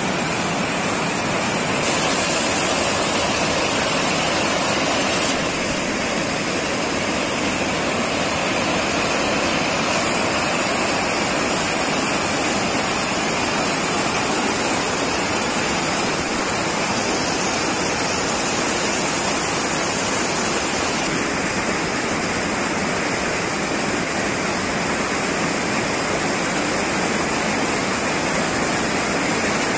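Water from a small forest waterfall rushing over rocks: a loud, steady, full rush whose tone shifts slightly every few seconds.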